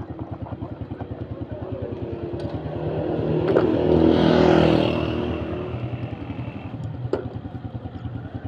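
An engine chugging steadily with a rapid pulse, while a motor vehicle passes close by, growing loudest about four seconds in and then fading away. A couple of sharp clicks are heard.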